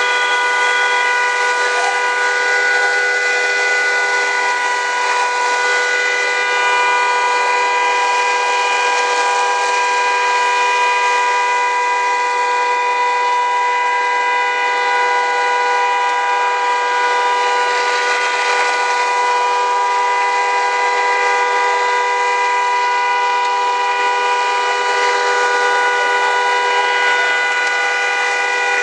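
A car horn blaring without a break, a steady two-note chord over a constant hiss. It is the horn of an SUV engulfed in flames, stuck on as the fire burns through its wiring.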